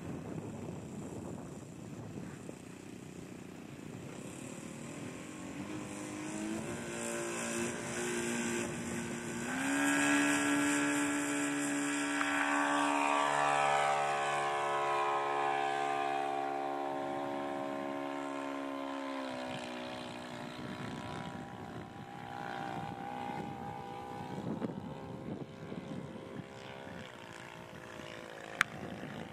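Propeller engine of a large-scale radio-controlled Piper Cub model plane throttling up, its pitch rising in two steps as it takes off and growing loud. About two-thirds through, the pitch drops, and the engine fades to a fainter steady drone as the plane climbs away.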